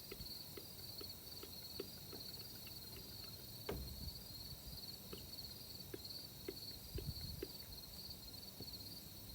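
Faint soft clicks, a few to the second and unevenly spaced, from the chainsaw's rubber primer bulb being pressed over and over; the bulb has not yet drawn fuel. Two louder knocks come about a third of the way in and about two thirds in. Crickets or other insects chirp steadily behind.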